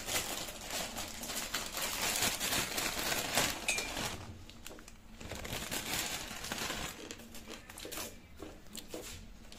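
Plastic Maggi noodle packet crinkling as it is cut open with scissors and handled, densest for about the first four seconds, then sparser crackles.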